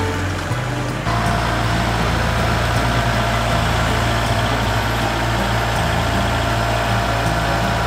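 Kubota compact tractor's diesel engine running steadily as the tractor with its LA765 loader moves up to pallet forks; the engine sound shifts about a second in.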